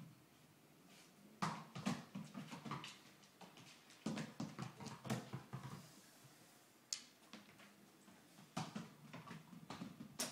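Shiba Inu puppy scrambling and pouncing at a toy: bursts of scuffling taps and light thumps, about a second and a half in, again around four seconds, and near the end.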